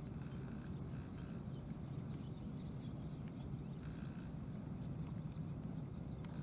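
Two cats eating from a plastic tray, with small wet chewing and smacking clicks scattered through, over a steady low outdoor rumble.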